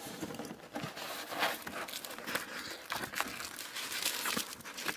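Paper rustling and crinkling in quick, irregular bursts as old photographs and papers are handled and shuffled by hand.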